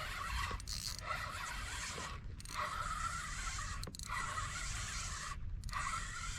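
Fishing reel being cranked to retrieve line with a hooked fish on, a steady rasping whir in runs of a second or two broken by brief pauses between turns.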